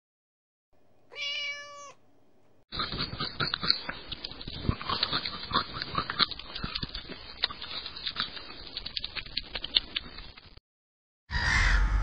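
A kitten gives one short meow about a second in. Then comes a long run of quick, crisp crunching clicks: a koala chewing eucalyptus leaves. Near the end geese start calling.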